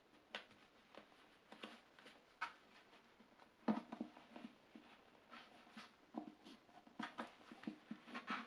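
Faint rustling and small knocks of thick rope being handled and slid around a book as a binding knot is adjusted, the loudest knock a little under four seconds in.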